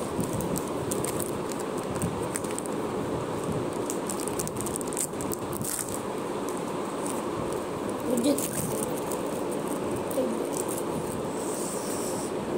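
A Pokémon card pack being opened and its cards handled: irregular crinkles and rustles of the wrapper and cards, over a steady whirr from a spinning ceiling fan.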